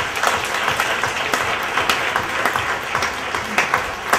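Audience applauding, a dense patter of many hands clapping, which cuts off suddenly at the end.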